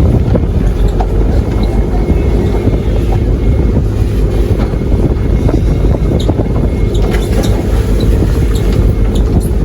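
Boat engine running steadily under way: a loud, even rumble with wind on the microphone.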